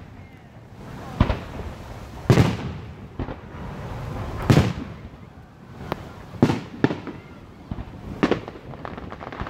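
Aerial firework shells bursting, a string of about eight sharp bangs at uneven intervals of roughly a second, some followed by a short echo.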